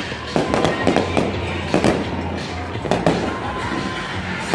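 Fireworks display going off in quick succession: sharp bangs and pops, two or three a second, over a continuous rumble and crackle.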